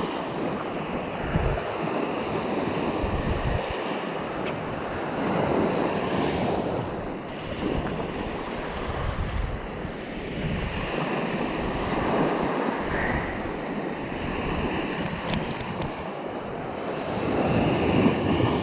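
Small waves breaking and washing up a sandy beach, swelling and fading every few seconds, with the loudest surge near the end. Wind buffets the microphone with low rumbling gusts.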